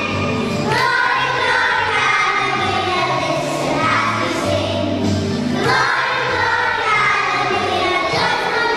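A young children's choir singing a song in unison over musical accompaniment with a steady bass line.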